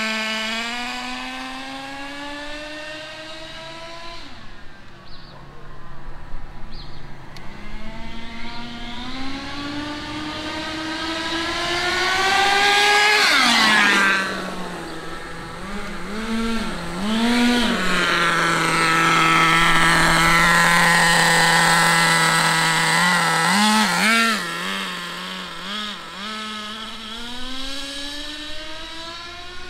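HSP nitro RC rally car's small two-stroke glow engine revving as the car is driven: the pitch climbs for several seconds, drops sharply about halfway through, then comes in quick throttle blips and a steady run before climbing again near the end. The two-speed gearbox is still not shifting into second gear.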